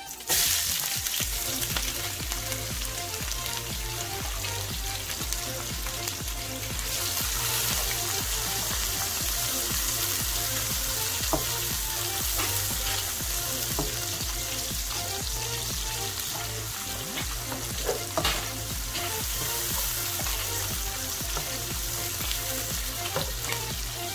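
Sliced onions dropped into hot oil in a metal pan start sizzling suddenly and then fry steadily, while a spatula stirs them and scrapes or taps the pan now and then. They are frying lightly to brown.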